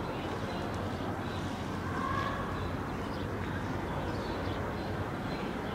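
Steady street noise of passing cars, with a faint brief higher sound about two seconds in.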